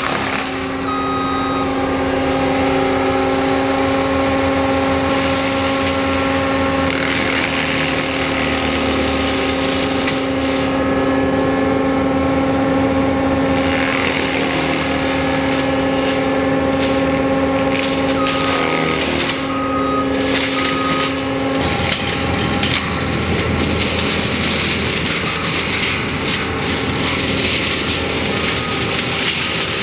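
ASV 135 compact track loader running a forestry mulcher head, engine and spinning mulcher drum giving a loud, steady hum. About three-quarters of the way through, the steady hum drops away, leaving a rougher machine noise.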